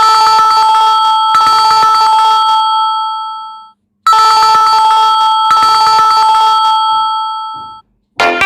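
A Samsung Galaxy M21 stock ringtone ringing twice: each ring is a bright, bell-like pair of steady tones with a fast pulse, starting sharply and fading out over about four seconds, with a short gap between the two rings.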